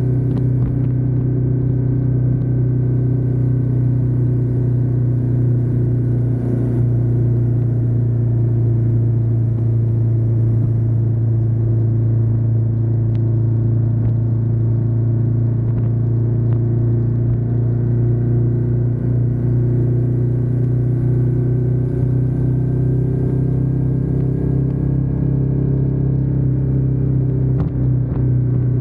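Ducati Diavel 1260S's 1262 cc V-twin engine running at a steady engine speed, with a deep, even rumble that holds one pitch throughout.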